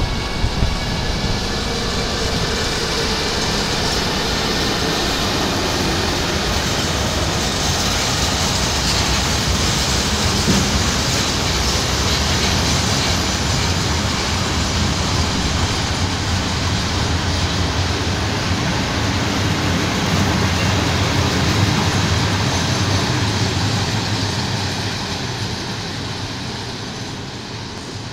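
Freight train of tank wagons rolling through the station behind a Siemens Vectron electric locomotive, with a continuous noise of wheels on rail. A few faint steady tones are heard as the locomotive passes at the start, and the sound fades over the last few seconds as the train moves away.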